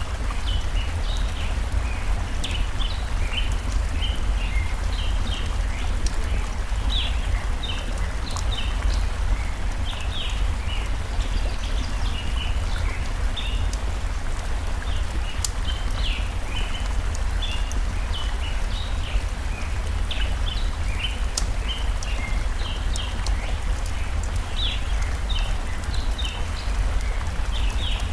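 Steady rush of flowing stream water with small birds chirping in quick short notes throughout, and a few sharp crackles from a wood fire.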